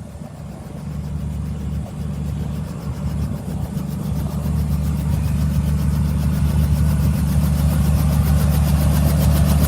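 Robinson R44 helicopter running on the ground, its engine and rotor a steady hum that grows steadily louder.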